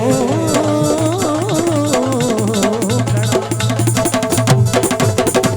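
Instrumental interlude of a devotional bhajan: a melody line with sliding, ornamented turns over a steady hand-drum rhythm. The drum strokes grow denser about halfway through.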